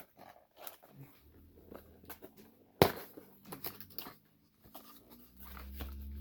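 Light clicks and rustles of a boxed item and its packaging being handled, with one sharp knock about three seconds in. A steady low hum starts near the end.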